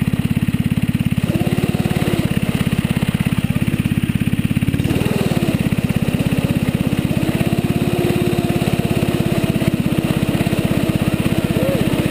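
Small engine of a youth snowmobile running close by, with rapid, even firing pulses; about five seconds in it picks up as the sled starts to move.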